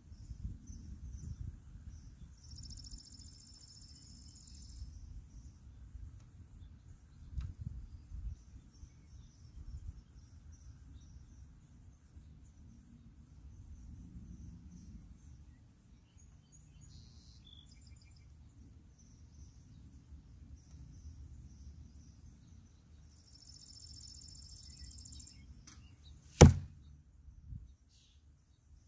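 A single bow shot near the end: a sharp snap as the string is released, then about a second later a fainter thud as the arrow strikes the target 80 yards downrange. Wind rumbles on the microphone throughout, and a high insect or bird trill sounds twice.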